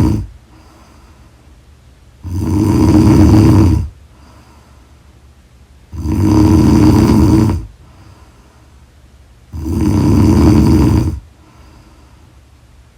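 A woman snoring loudly and rhythmically in sleep. A snore is just ending at the start, then three long snores follow, each about a second and a half, one every three and a half seconds or so, with faint breathing between them.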